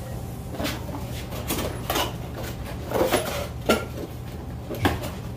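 Fishing reels and their cardboard boxes being handled during unboxing: about seven sharp knocks and light clinks at uneven intervals as boxes and metal reels are picked up and set down.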